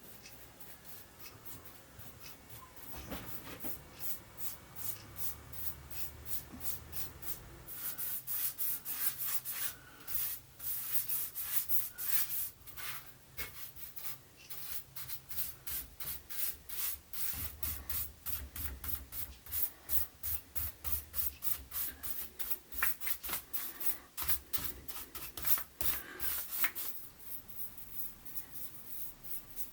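Hand sanding of wood: quick back-and-forth rubbing strokes, about two to three a second, growing louder about a quarter of the way in.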